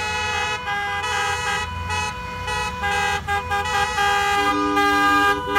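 Several vehicle horns honking at once, long held and overlapping at different pitches, some cutting in and out, over the low rumble of passing traffic.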